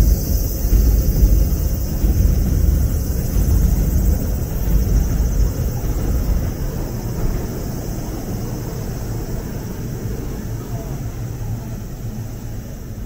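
Low rumble of a passing vehicle, loudest at the start and fading away over the following seconds.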